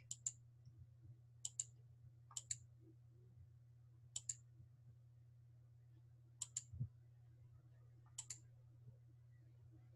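Computer mouse clicks, each a quick press-and-release double tick, about six in all a second or two apart, over a faint steady low hum.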